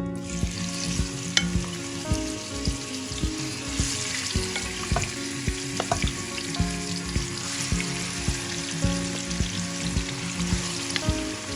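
Marinated chicken frying in hot oil in a pan, sizzling loudly. The sizzle starts suddenly as the chicken goes in and then carries on steadily, with a few sharp clicks.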